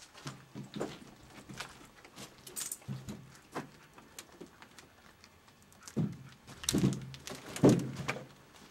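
Footsteps scuffing and crunching irregularly over a debris-strewn floor, with a louder run of steps and knocks in the last few seconds.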